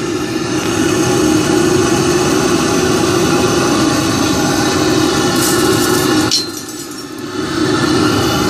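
Propane burner firing into a homemade bucket furnace, burning steadily while it heats aluminium to melting. A few light clinks come about five and a half seconds in, and the burner sound dips for about a second just after.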